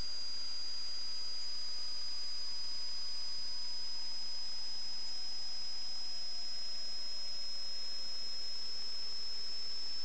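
Electrical noise on the sewer inspection camera's recording: a steady hiss with a constant high-pitched whine, and a fainter tone that slowly falls in pitch.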